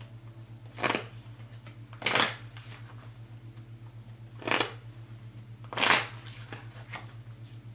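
Tarot cards being shuffled in four short bursts, each well under half a second, over a steady low hum.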